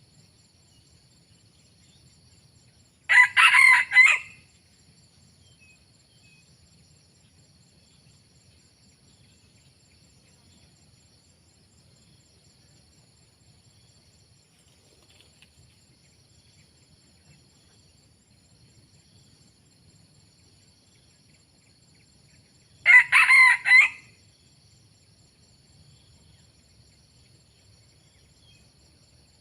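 A rooster crowing twice, about twenty seconds apart, each crow about a second long.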